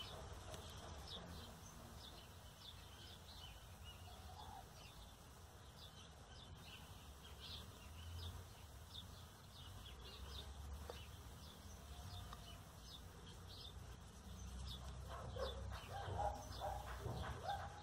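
Faint background birds chirping: many short, high chirps scattered throughout, over a low steady hum.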